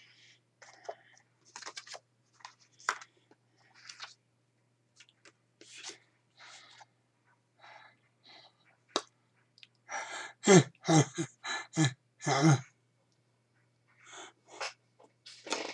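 A man's voice, mostly soft breathy mouthing and whispered sounds, with a run of louder voiced syllables about two-thirds of the way through.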